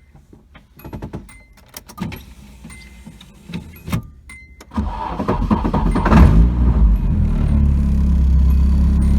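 Keys jingling and clicking in the ignition, then a 1992 Nissan 240SX's 2.4-litre four-cylinder cranks and starts about five seconds in, rising briefly before settling into a steady idle.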